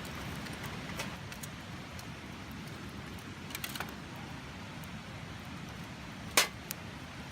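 Steady low background rumble with a few scattered light clicks, and one sharp snap about six seconds in.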